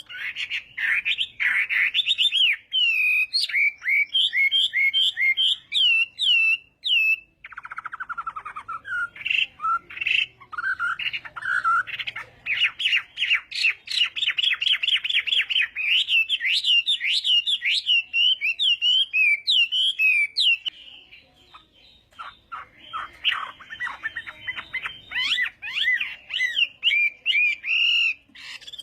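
Chinese hwamei singing a varied song of whistled, slurred phrases with runs of rapid trilled notes. It drops to quieter, faster notes for a moment about three-quarters of the way through, then resumes in full.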